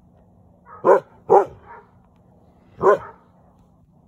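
A dog barking: two quick barks about a second in, then a third about two seconds later.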